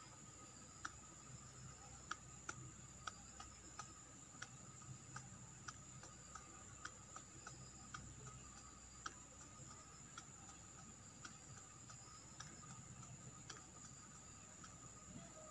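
Near silence: faint, irregular ticks, roughly two a second, over a steady thin high whine.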